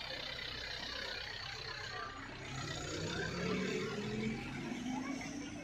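Bus engine running, then rising steadily in pitch from about halfway through as the bus pulls away.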